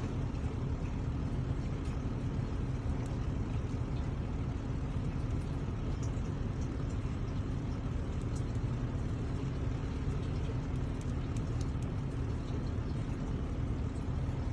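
A steady low rumble with faint scattered ticks over it.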